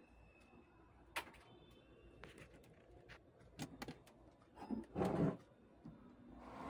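Handling noises on a workbench: a few light clicks and knocks, then a louder rubbing scrape about five seconds in.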